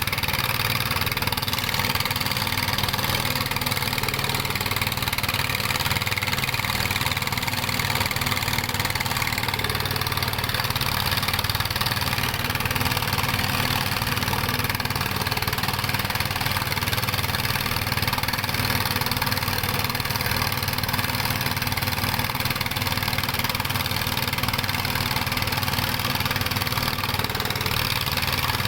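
Dongfeng-type ('dompeng') diesel engine of a small gold-mining rig running at a steady speed, a loud continuous drone with no change in speed.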